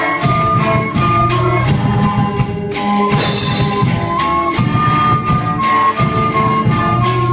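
Student ensemble playing a Chilean folk song: many melodicas carry the melody in held, reedy notes over strummed acoustic guitar and electric bass, with a steady beat of percussion strokes.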